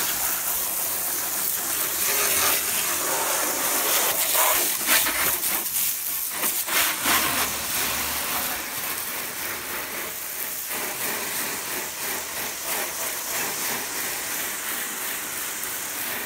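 Garden hose pistol-grip spray nozzle shooting a steady jet of water against a car's bodywork and onto gravel: a continuous spraying hiss with splashing, a little softer after about ten seconds.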